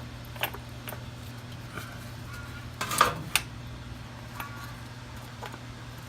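Light metallic clicks and clinks as the motorcycle's oil filter cover is handled and tried against the engine case, the loudest pair about three seconds in. A steady low hum runs underneath.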